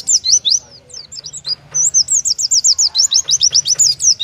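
Oriental white-eye (pleci) singing a fast run of high, down-sliding chirps, several notes a second. There is a short pause about a second in, then the rapid string resumes. This is the 'tembakan' burst style of song that contest judges favour.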